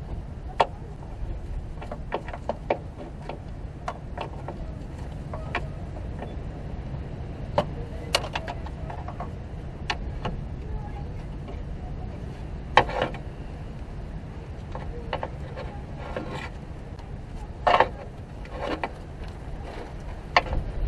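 Irregular metallic clinks and knocks from hand tools and bolts while the starter's mounting bolts are being threaded in, over a steady low rumble; the loudest knocks come about two-thirds and five-sixths of the way through.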